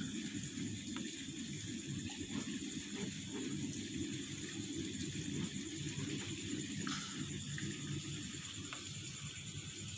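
Quiet background ambience: a steady high-pitched hum over a low, uneven rumble, with a few faint clicks.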